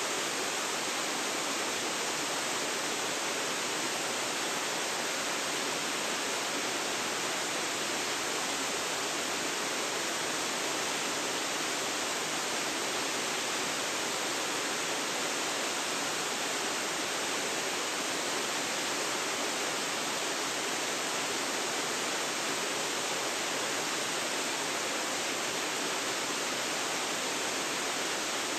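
Waterfall rushing: a steady, even hiss of falling water with no breaks or changes.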